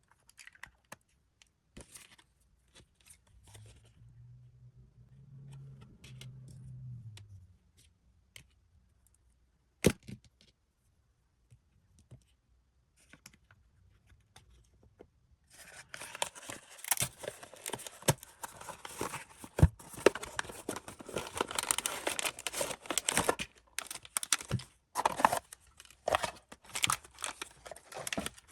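Blind-box packaging being handled: scattered light taps and clicks with one sharper click. Then, from about halfway on, continuous crinkling and tearing of a plastic wrapper as it is torn open.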